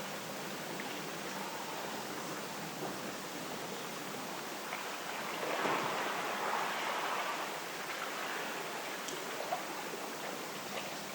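Sea waves washing against the shore with wind, a steady rush that swells louder for a couple of seconds about halfway through, with a few faint ticks.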